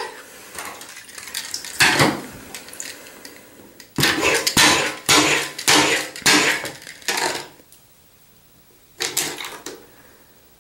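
A series of sudden clattering knocks from plastic toy pieces handled against a hard bathtub surface, coming in about seven separate bursts and then falling quiet.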